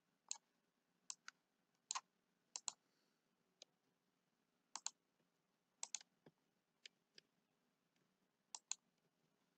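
Computer mouse clicking, a series of short sharp clicks, several in quick pairs, with near silence between them.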